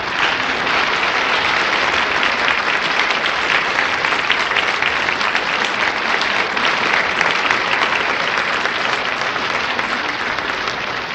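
Audience applauding: many hands clapping in a dense, steady patter that starts abruptly and tails off a little near the end.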